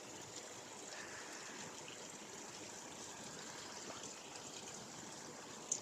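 Rain falling steadily, faint and even.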